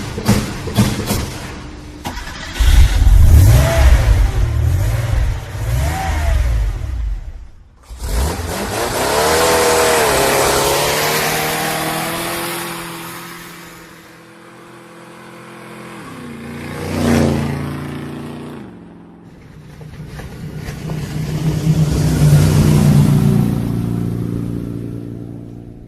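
Car engine sound effects: a run of loud rumbles, revs and pass-bys that swell and fade several times, with quick knocks at the start.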